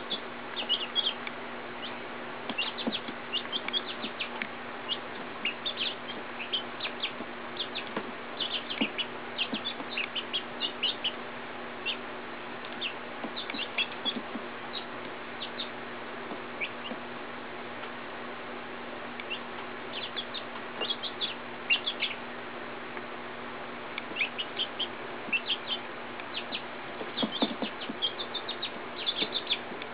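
Young silkie chickens peeping: short, high chirps coming in bursts, with a quieter stretch around the middle, over a steady background hum.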